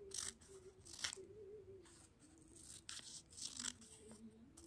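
Scissors snipping through a sheet of graph-paper pattern paper, cutting out a pattern piece: about four short, crisp cuts at uneven intervals.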